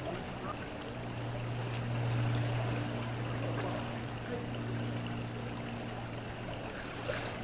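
Creek water running, with a steady low hum underneath that swells about two seconds in and then eases off.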